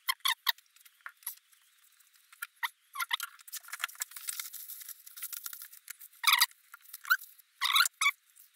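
Workshop handling noises: a run of short clicks, scrapes and rustles from hands, a rag and a paper towel around a greased wheel hub, with a few louder brief rustling bursts near the end.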